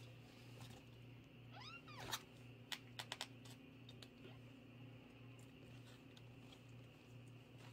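A 20-day-old kitten gives one high, arching meow about two seconds in, followed right after by a quick run of sharp clicks. A low steady hum runs underneath.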